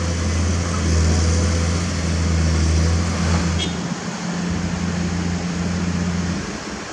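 Komatsu PC210 excavator's diesel engine running steadily, a low hum. About four seconds in, the sound changes to a quieter, different engine hum of heavy machinery at a construction site, which falls off near the end.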